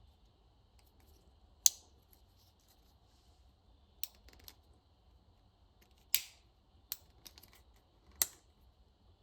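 Victorinox Swiss Army knife blades worked open and shut by their thumb studs, snapping against the backspring. Several sharp clicks come a second or two apart, the first one the loudest.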